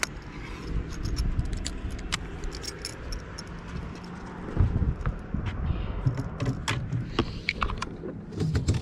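Handling noise of fishing gear and the camera being moved about on a boat: scattered sharp clicks and knocks with rubbing and low thumps, busiest about halfway through and near the end, over a faint steady low hum.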